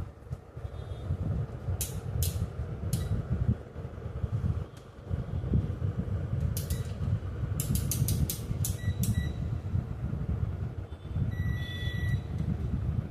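Sharp clicks and taps of small tools and probes handled on a laptop motherboard, over a low rumbling handling noise, with a short high electronic beep near the end.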